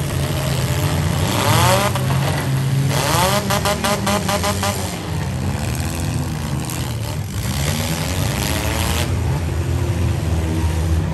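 Several demolition derby compact cars' engines running hard at once, revving up and down as they push and ram each other, with the sharpest rising revs early on and a rapid throbbing rev between about three and five seconds in.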